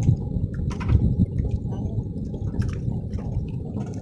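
Choppy river water splashing and gurgling around a small boat, under a heavy, steady low rumble of wind on the microphone, with scattered small clicks.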